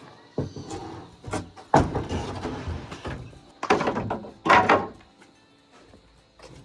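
Old wooden boards and timbers being handled, giving a series of heavy knocks and thuds, with a scraping, rustling stretch about two seconds in.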